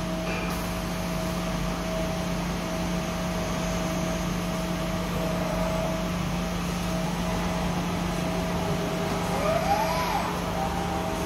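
Industrial robot arm loading a lathe: a steady mechanical hum with a faint steady tone, and near the end a short servo whine that rises and then falls as the arm swings round.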